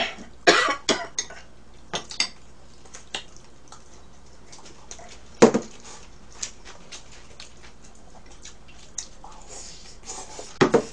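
Chopsticks clicking against dishes and a tabletop grill plate during a meal of grilled beef, with scattered light clatters. One louder sharp sound comes about five and a half seconds in, and a few more clatters come near the end.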